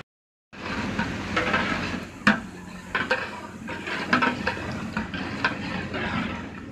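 Masala gravy sizzling in a large aluminium cooking pot as it is stirred, with sharp scrapes and knocks of a ladle against the pot, while it cooks until the oil rises to the top. The sound cuts in after half a second of silence.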